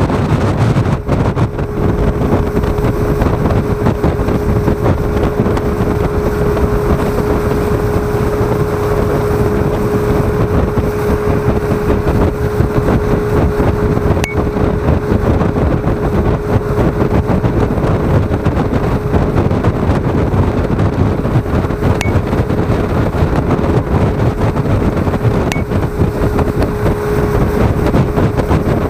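Speedboat running at speed: a steady, loud mix of engine noise and rushing water and wind. A steady hum runs through it and stops near the end.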